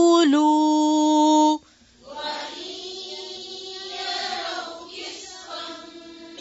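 A female reciter chants the Quran in tajweed style, holding a long steady drawn-out vowel on the word "yaqooloo" for about a second and a half before stopping. After a short pause a quieter group of voices chants the verse together in unison.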